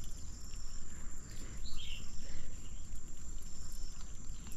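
Steady high-pitched insect drone, with a low rumble underneath and a short chirp about two seconds in.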